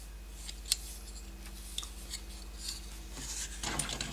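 Small die-cast metal toy cars being handled and set down, giving a few short, light clicks and clinks, the sharpest about a second in and a quick cluster near the end, over a steady electrical hum.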